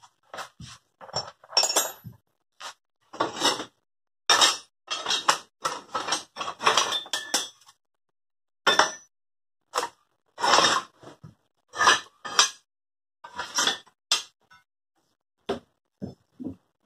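Rusty scrap steel pieces clanking and scraping against each other as a crate of scrap is rummaged through by hand, in irregular bursts of clatter that thin out and grow fainter over the last few seconds.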